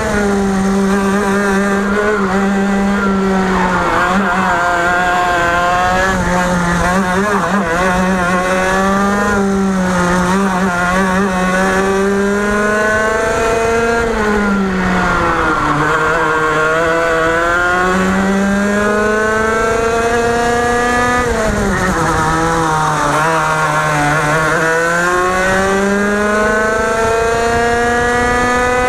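Two-stroke TaG racing kart engine running at high revs on track: its pitch climbs steadily along the straights and drops sharply twice as the kart slows for corners, then rises again near the end.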